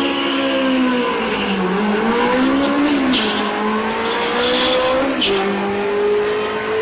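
Ferrari 360 Modena's V8 accelerating hard down a drag strip, its pitch climbing and dropping at each upshift: twice in the first three seconds, then once more near the end.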